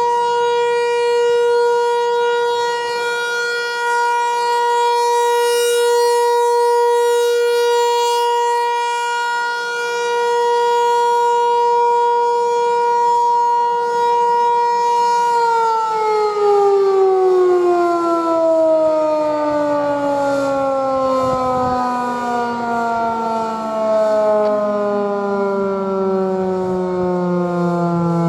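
Federal Signal 508 electromechanical outdoor warning siren sounding a steady alert tone, then, about fifteen seconds in, winding down, its pitch falling slowly as the rotor coasts down at the end of the alert signal.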